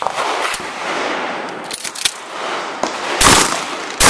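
12-gauge pump-action shotgun firing: two loud shots, about three seconds and about four seconds in, less than a second apart. Fainter sharp clicks and knocks come before them.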